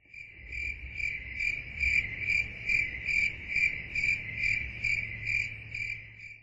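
Cricket chirping in a steady rhythm, a little over two chirps a second, fading in at the start and stopping at the end, over a faint low hum.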